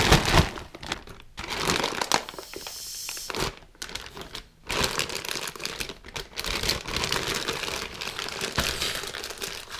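Plastic zip-top bag of chopped hot dogs crinkling and rustling as it is shaken, opened and squeezed to push the air out; loudest at the start.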